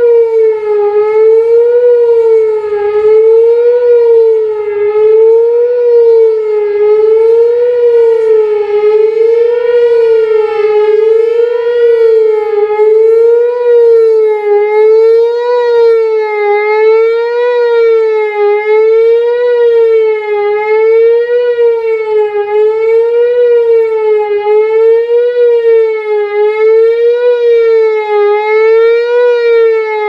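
Whelen WPS-4004 electronic outdoor warning siren sounding its attack (fast wail) tone, loud, its pitch rising and falling quickly and evenly about once every second and a half as the horn head rotates.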